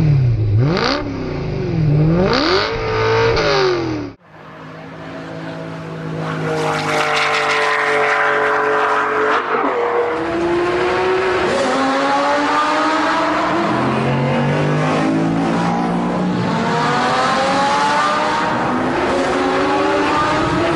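A high-performance car engine blipped up and down through its revs. About four seconds in there is an abrupt cut, then a car accelerates hard through several gears, its exhaust note climbing and dropping back at each upshift.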